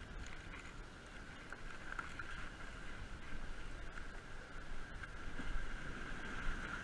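Wind rumbling on the camera microphone over water washing against jetty rocks, with a steady thin high hiss and a few light clicks of handling.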